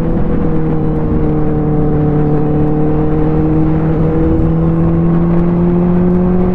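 Benelli 600i inline-four engine running at steady highway speed under the rider, with wind rushing over the microphone. Its note dips a little at the start and then climbs slowly.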